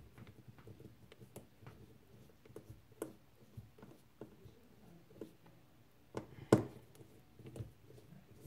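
Small star-tip precision screwdriver turning the tiny screws on the back of a Fitbit Charge HR: faint, scattered clicks and scrapes of the bit and fingers against the small case, with one louder knock about six and a half seconds in.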